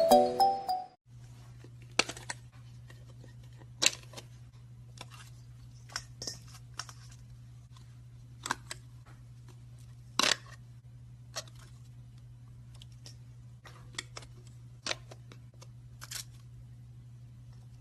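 Intro music cuts off about a second in. Then slime is handled by hand, giving scattered sharp clicks and snaps at irregular intervals over a steady low hum.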